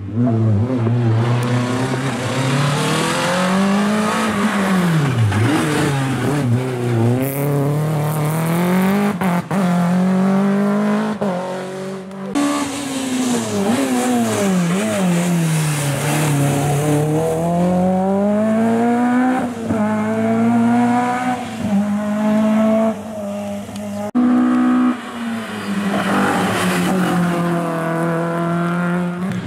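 Small hatchback rally cars racing uphill, engines revving high and dropping sharply with each gear change and lift for the bends. The sound cuts off abruptly twice as one car gives way to the next.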